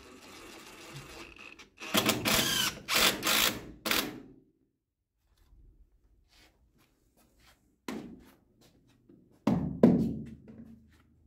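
Cordless drill driving screws into metal joist hangers, in several short runs with the motor's pitch rising and falling. Near the end a loud thump.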